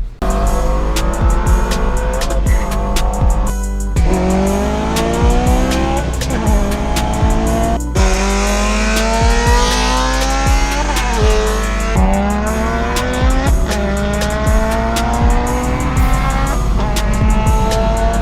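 Music with a heavy steady bass and a regular beat, mixed with a car accelerating hard. The engine's pitch climbs and falls back at each gear change, over and over.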